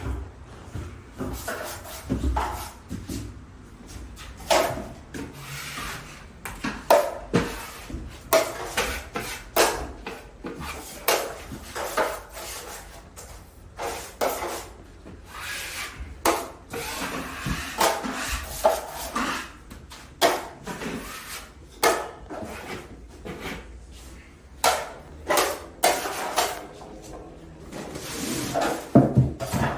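Drywall knife spreading joint compound (mud) over drywall and scraping it off, in short repeated scraping strokes.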